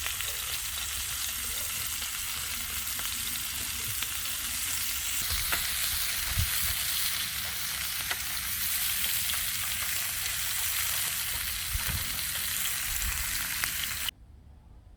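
Food frying in a pan: a steady sizzle with scattered small crackles, which cuts off suddenly near the end.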